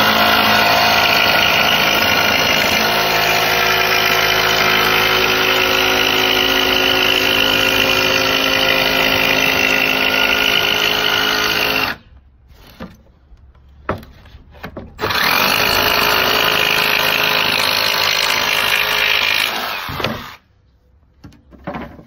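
Electric saw cutting plywood. It runs steadily for about twelve seconds, stops for a few seconds with a couple of knocks, then runs again for about five seconds and winds down.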